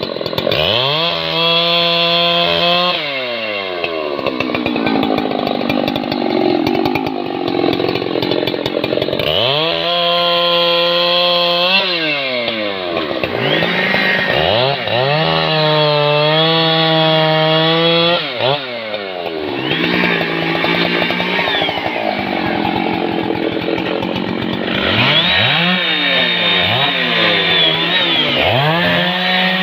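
Husqvarna 3120 XP chainsaw and a second, smaller chainsaw cutting rain tree logs. Their engines climb to full revs and drop back again and again, held flat out for several seconds in the middle, and near the end the two saws overlap.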